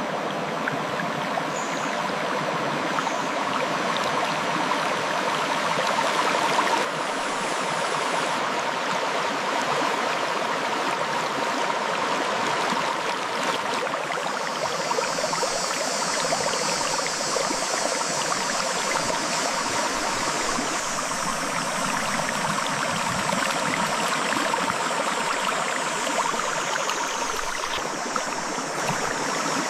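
A clear river flowing over rocks, a steady rushing and babbling of water.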